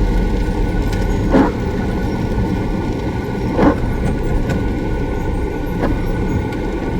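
Campervan on the move, heard from inside the cab: a steady engine and road noise. Brief short sounds stand out about a second and a half in and again at about three and a half seconds.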